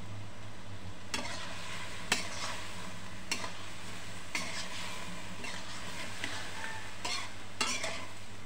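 Eggplant pieces frying in oil in a kadai, sizzling, while a flat spatula scrapes and knocks against the pan as they are stirred and turned, roughly once a second, the sharpest knock about two seconds in.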